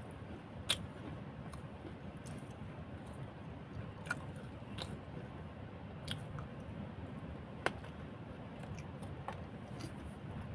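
A person chewing food close to the microphone, with a few sharp mouth clicks scattered through the chewing.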